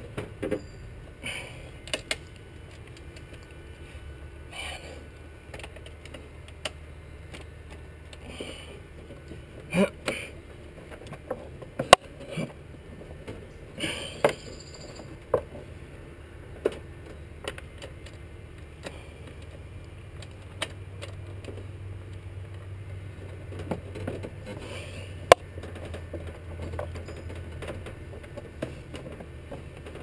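Hand tools and intake parts being handled as bolts and clamps are fitted: scattered sharp metal clicks and knocks with short rustles, over a low steady hum.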